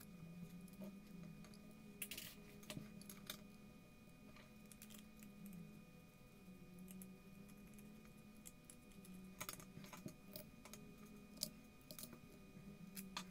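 Faint, irregular clicks and taps of small steel M3 screws and carbon-fibre frame arms being handled and fitted together on a table, over a faint steady low hum.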